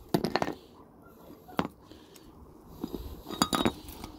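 Scattered light metallic clinks and knocks from a rusty rear brake caliper mounting bracket and its slide pins as it is moved on the ground. A quick run of clinks comes at the start, one more about one and a half seconds in, and a cluster near the end.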